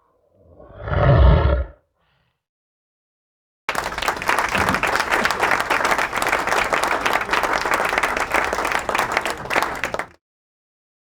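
A short animal roar, swelling and fading over about a second and a half. After a pause, a crowd applauding for about six seconds, cutting off suddenly.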